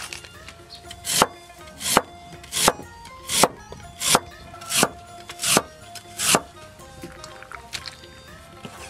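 A cleaver slicing through a lotus root onto a wooden chopping board: eight even strokes, about one every 0.7 seconds, starting about a second in and stopping about six seconds in. Soft background music plays underneath.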